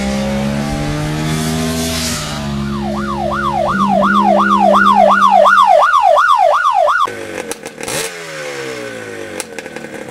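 Motorcycle engine running and revving, its pitch gliding up and down. From about three seconds in, a fast siren-like warble swings up and down about two and a half times a second and cuts off suddenly about seven seconds in, followed by more engine revving with sharp clicks.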